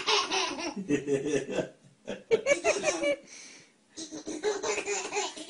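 A baby laughing in three bouts, ticklish laughter at a cat licking its bare toes, with an adult laughing along.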